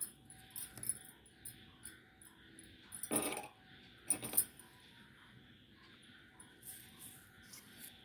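Light taps and handling of a clear plastic ruler on paper over a wooden table, with two short, louder scratchy strokes about three and four seconds in: a pencil drawing a straight line along the ruler's edge.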